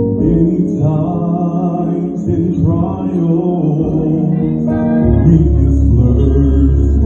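A man singing a slow song through a microphone and PA, over sustained low accompaniment notes; a deep bass note comes in about five seconds in.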